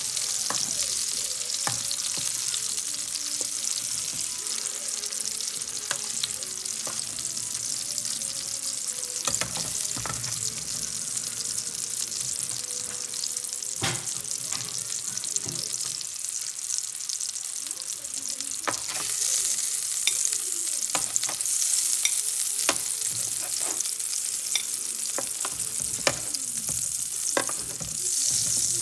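Food sizzling as it fries in a pan, with utensil clicks and scrapes now and then. The sizzle gets louder about two-thirds of the way through.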